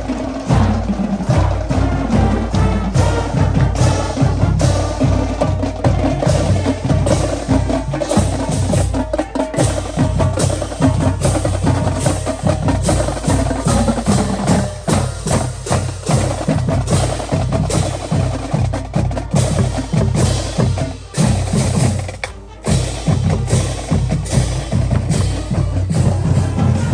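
High school marching band playing, driven by its drum section with rapid, sharp drum and rim strokes. The sound dips briefly about 22 seconds in.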